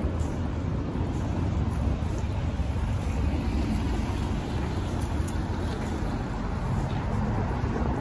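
City street traffic: cars passing on the road beside the sidewalk, a steady low rumble.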